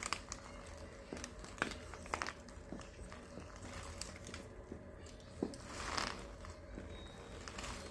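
A person biting into and chewing a breakfast burrito: soft, irregular wet mouth sounds and small clicks, with a fresh bite about six seconds in.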